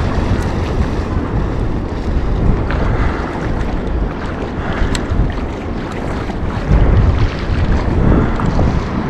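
Wind buffeting the microphone: a loud, uneven low rumble that swells and dips, with a few faint clicks.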